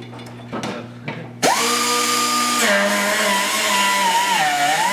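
A pneumatic grinder on an air hose spins up about a second and a half in, with a whine that rises fast and holds steady. It then drops in pitch and wavers as it bites into the steel sill and floor panel, grinding it and throwing sparks. A few light knocks come before it starts.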